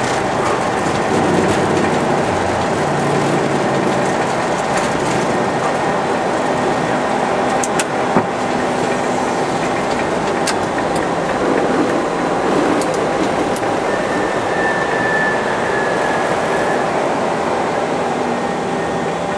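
Loud, steady cockpit noise of an Airbus A321 at takeoff thrust, the engines and rushing airflow running through the end of the takeoff roll, liftoff and initial climb. A few sharp clicks sound about eight and ten seconds in.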